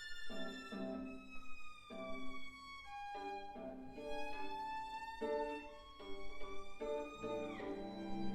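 Slow instrumental background music: a sequence of held notes, one every half-second to a second, under high sustained tones that glide slowly, with a deeper, louder note coming in near the end.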